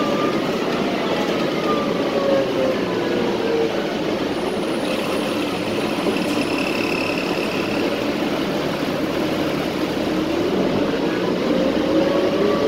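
City transit bus engine and drivetrain running steadily, heard from inside the passenger cabin. Its whine falls in pitch over the first few seconds and climbs again near the end.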